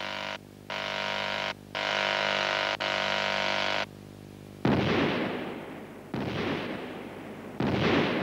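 A steady machine drone, broken off briefly twice, stops about four seconds in. Then three rock-blasting explosions follow in a mine stope about a second and a half apart, each a sudden loud bang that tails off into a rumble.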